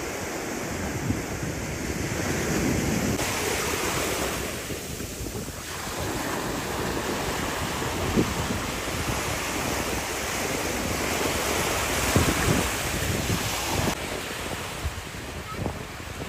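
Surf washing onto a sandy beach, a steady rushing hiss of waves, with wind buffeting the microphone in low rumbling gusts.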